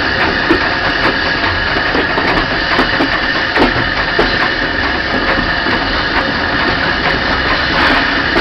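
Steam train of LBSC A1X Terrier tank engine Fenchurch and a brake van on the move, heard from the brake van: a steady running rumble and rattle with a constant hiss and irregular small knocks.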